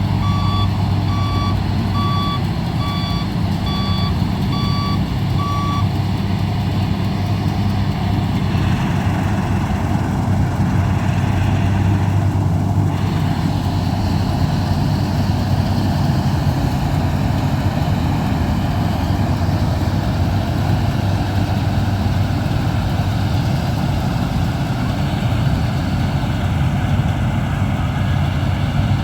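Combine harvester's diesel engine and machinery running steadily under load, with a reversing alarm beeping about once a second that stops about six seconds in.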